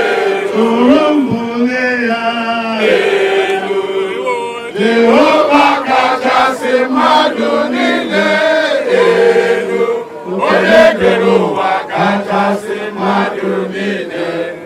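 A man singing a song, with held and gliding notes.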